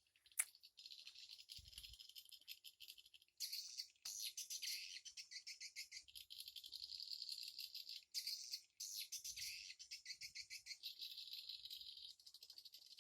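Swiftlets twittering: fast, dense, high-pitched chattering trills that run on with brief breaks. A single sharp click comes about half a second in.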